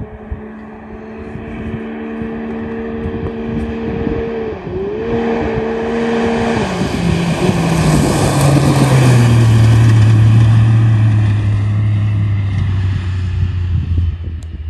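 Can-Am Maverick X3's turbocharged three-cylinder engine with a Yoshimura exhaust, running hard at high revs with a brief dip about four and a half seconds in. Its note then falls steeply in pitch and the sound is loudest around ten seconds in, before it eases off near the end.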